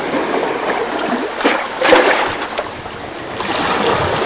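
Sea water washing and splashing among boulders as a steady rushing hiss, with two short knocks about a second and a half and two seconds in.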